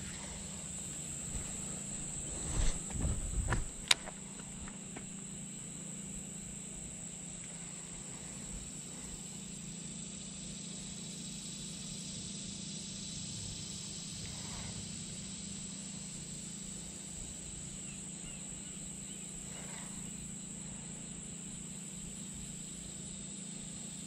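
Insects buzzing steadily at a high pitch over a faint low hum. A few low bumps of handling noise come about three seconds in, followed by one sharp click.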